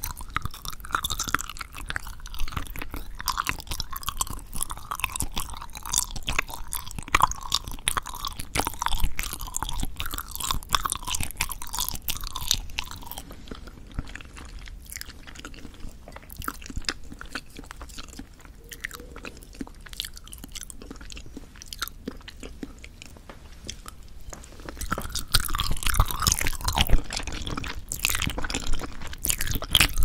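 Close-miked chewing of olbangae-muk, a Korean water-chestnut starch jelly: wet, clicking, squishy mouth sounds of a chewy jelly, what the uploader calls a chewy pudding sound. The chewing thins out about halfway through and picks up again with a fresh bite near the end.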